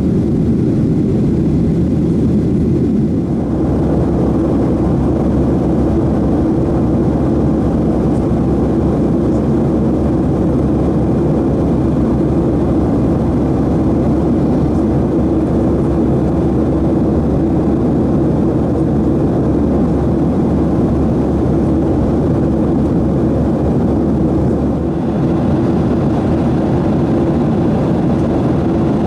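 Steady in-flight cabin noise of a Boeing 737-700: the CFM56 jet engines and rushing air heard from inside the cabin. The tone shifts a little about three seconds in and again near the end.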